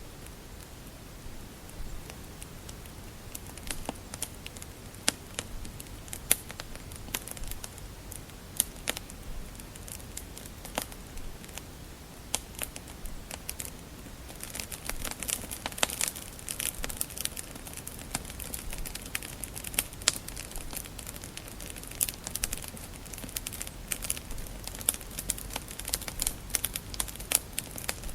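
Wood fire crackling in a fireplace, with scattered sharp pops and snaps over a soft steady hiss, getting busier about halfway through.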